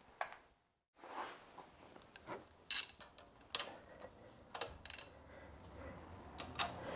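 Metal hand tools clinking: a socket, extension and ratchet being handled and fitted onto the crankshaft pulley bolt, with several short sharp metallic clinks spread over a few seconds.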